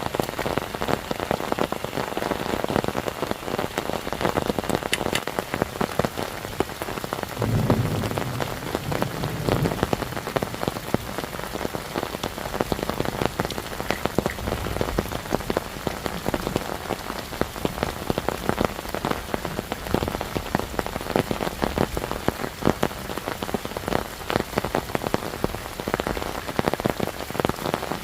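Heavy rain falling, dense drops pattering on a surface close by, with a brief low rumble about eight seconds in.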